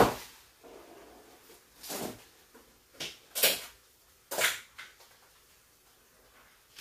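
Short, sharp kitchen clatters: five or six knocks and clinks of utensils and containers handled at the counter as butter is added. They are spread over the first few seconds, then it goes quiet.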